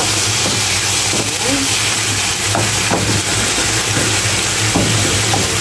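Sliced carrots, bell pepper and onion sizzling in a frying pan as ketchup is stirred in with a wooden spoon, the spoon scraping the pan a few times. A steady low hum runs underneath.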